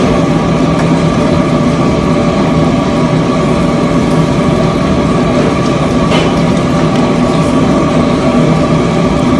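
Steady mechanical drone of a running engine or motor, a constant hum with a rushing noise beneath it.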